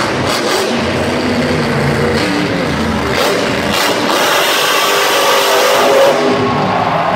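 Grave Digger monster truck's supercharged V8 engine revving hard as the truck drives and launches off a dirt jump, its pitch climbing to a peak about six seconds in.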